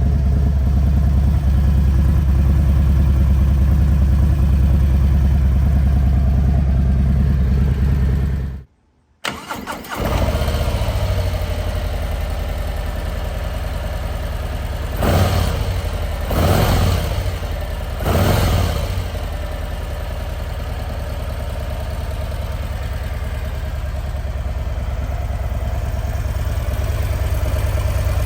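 Harley-Davidson Low Rider ST's Milwaukee-Eight 117 V-twin idling through its exhaust. It drops out abruptly for a moment about nine seconds in, comes back idling, and about halfway through is given three quick throttle blips before settling back to idle.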